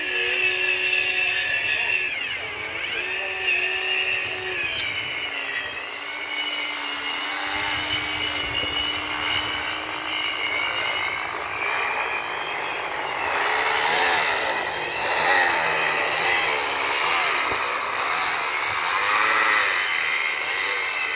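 Electric motor and propeller of a Fun Cub radio-controlled plane whining in flight. Its pitch wanders up and down with the throttle, and there is a falling sweep near the end as the plane passes.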